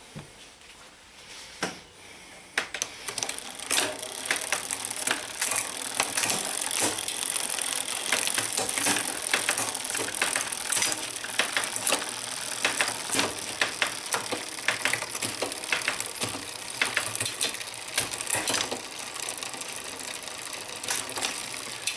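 Bicycle drivetrain spun by hand: the chain runs over a Shimano 11-40 cassette and through an Ultegra RX800 clutch rear derailleur. A dense rattling clatter of chain links and sprocket teeth starts about two and a half seconds in, as the gears are shifted up and down.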